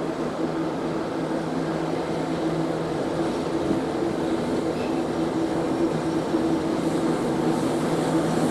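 A ChME3T shunting locomotive's six-cylinder diesel engine running with a steady hum as it pulls a passenger train slowly along the platform.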